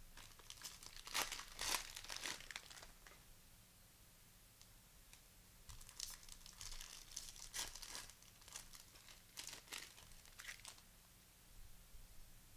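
Cellophane wrapper of a basketball card pack crinkling and tearing as it is ripped open and handled, in two bouts of crackling.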